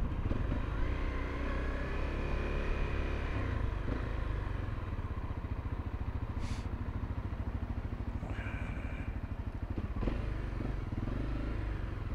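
Honda CRF250L's single-cylinder four-stroke engine running at low speed and then idling steadily as the bike pulls up to a fuel pump.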